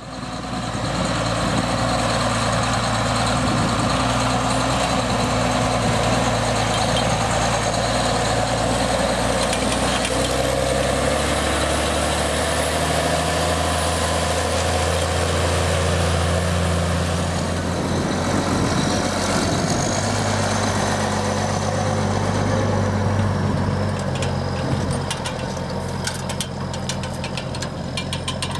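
New Holland T8050 tractor's diesel engine running steadily under load while pulling a Köckerling Vector cultivator through the soil, over a constant rushing noise. The engine note shifts in pitch a few times, and near the end it grows a little quieter with a spell of rapid clicking and rattling.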